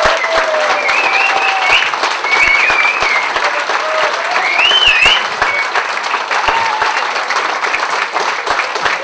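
A roomful of standing guests clapping, a dense, steady applause of many hands.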